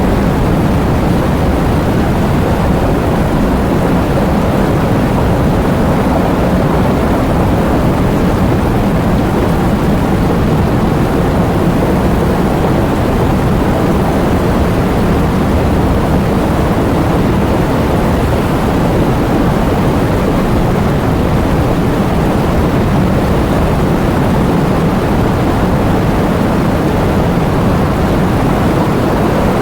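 Heavy rain with strong wind: a steady, dense noise heavy in the low end that does not let up.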